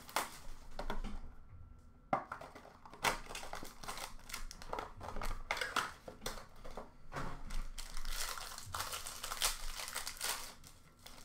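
Clear plastic wrapping of trading card packs crinkling on and off in the hands as the packs are handled and opened.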